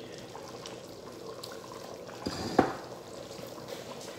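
Black chickpea curry bubbling as it simmers in an open pressure-cooker pot, with one louder plop about two and a half seconds in.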